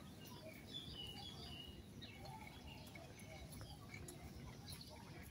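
Faint birds chirping and calling in short scattered notes, busiest about a second in, over a low steady outdoor rumble.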